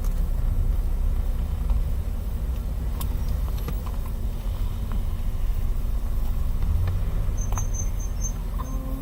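Steady low rumble of a car running, heard from inside the cabin, with a few faint clicks.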